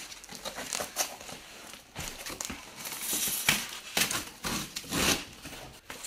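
Cardboard shipping box being tipped over and pulled off polystyrene foam packing blocks: a run of irregular scrapes and rustles, loudest a little past the middle and again near the end.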